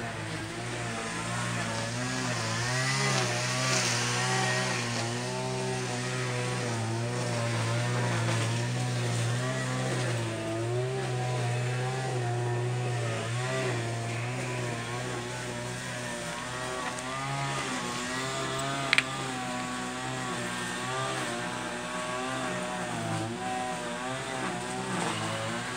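An engine running steadily, its pitch wavering slightly. A single sharp click about nineteen seconds in.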